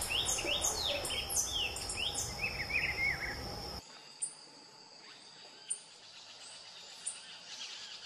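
Gray-headed tanager calling: a quick run of sharp, falling chirps, repeated several times a second. It cuts off suddenly about four seconds in, leaving only faint, scattered high chirps over a quiet natural background with insects.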